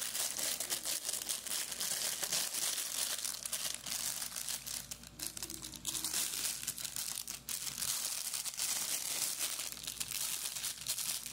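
Clear plastic bag crinkling and rustling as it is handled and pulled off a guitar effects pedal by hand, in a dense, irregular crackle throughout.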